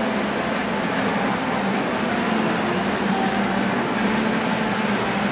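O scale model diesel locomotive running steadily along the track, a continuous hum with no breaks.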